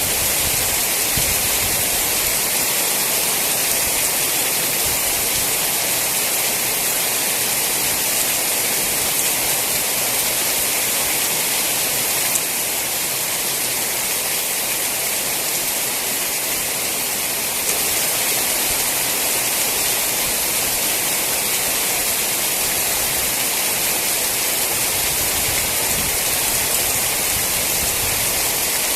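Steady, heavy rainfall: a dense, even hiss of raindrops that dips slightly in level for a few seconds midway.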